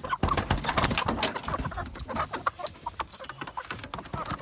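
A flock of chickens clucking close by, crowding around someone's feet, mixed with scuffling and knocking noises that are thickest in the first second or so.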